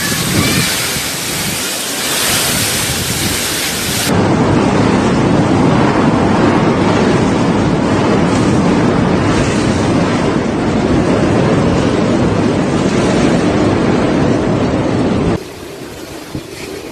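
Loud, steady rushing noise of typhoon wind and rain, changing abruptly about four seconds in to a deeper roar and dropping in level near the end.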